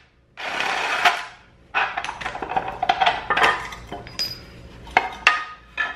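A cordless impact driver runs for under a second, removing a bolt from a trailing-arm bracket. It is followed by a string of sharp metallic clinks and clatters as the loose bracket, bolts and bushing are handled.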